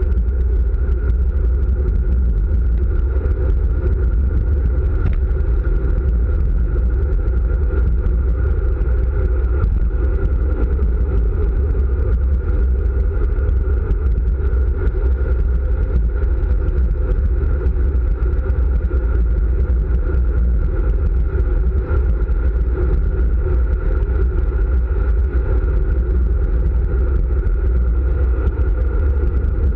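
Wind rushing over the microphone of a camera mounted on a road bike descending fast on asphalt: a loud, steady, deep rumble that never lets up.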